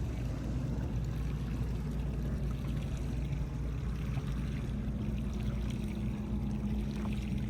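Water lapping and trickling against a boat's hull over a steady low rumble, with a faint steady hum joining about five seconds in.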